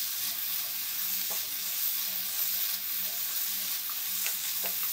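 Chilli-sauced prawns sizzling in a frying pan while being stirred, with a few light clicks of the spoon against the pan.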